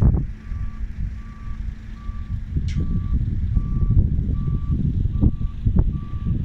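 A construction vehicle's reversing alarm beeping at an even pace, a bit more than one beep a second, over a loud low rumble.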